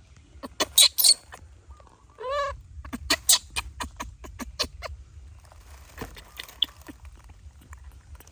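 Baby monkey giving a short cry that rises and falls in pitch, about two seconds in, amid a run of sharp clicks and taps.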